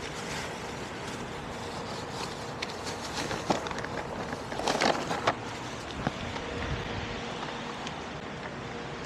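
Steady hum of vehicles with wind on the microphone, broken by a few short knocks and clicks around the middle.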